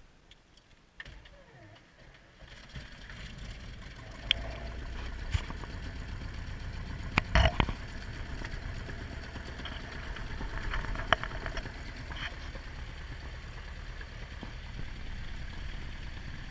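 Cessna 172P's four-cylinder Lycoming O-320 engine turning over on the starter, catching about four seconds in and settling into a steady idle, heard from inside the cockpit. A few sharp clicks sound over the running engine.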